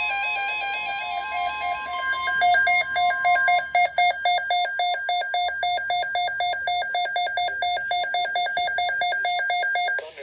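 Electronic emergency alert tones: a warbling sequence of stepped beeps over a steady tone near 1 kHz, then from about two seconds in a rapid pulsing electronic beep, about four or five pulses a second, which cuts off just before the end.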